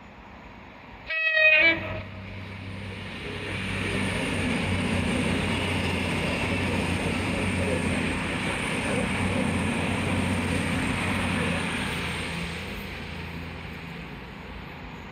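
A train gives a short toot on its horn, then passes by. Its rumble builds over a couple of seconds, holds steady for about eight seconds, and fades away near the end.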